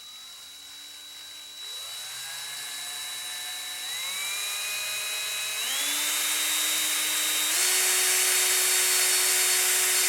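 DeWalt electric drill running steadily while drilling an oiled pilot hole for tapping. Its motor whine steps up in pitch and gets louder four times, about every two seconds, as the speed is raised.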